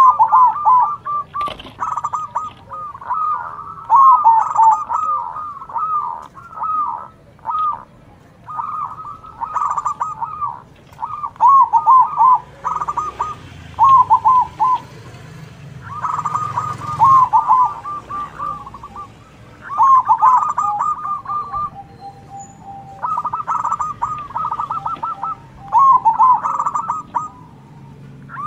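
Zebra doves (perkutut) singing their cooing song of quick staccato notes, phrase after phrase, several birds overlapping and answering one another.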